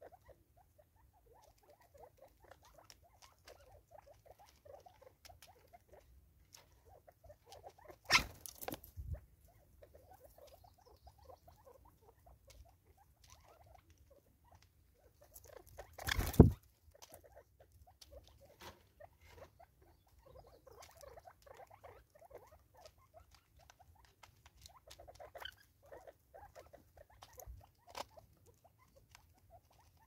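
Natal spurfowl pecking at food in a plastic-bottle feeder on a wooden stump, making runs of soft, rapid taps. Two louder brief flurries of movement come about eight and sixteen seconds in.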